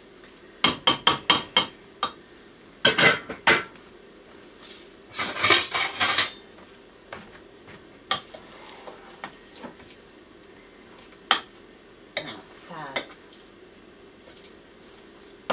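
Spoon clinking and scraping against a bowl while stirring boiled potatoes with grated onion, salt and pepper: short runs of quick clinks with pauses between, and a longer scrape about five seconds in.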